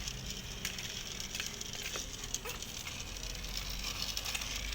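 Faint scattered clicks and light rattling of small plastic toy cars being handled, over a steady hiss.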